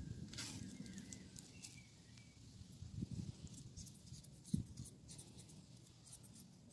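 Faint papery rustling of dry onion skin being handled, then light scraping as a small knife peels the skin off a tomato. A sharp soft knock about four and a half seconds in.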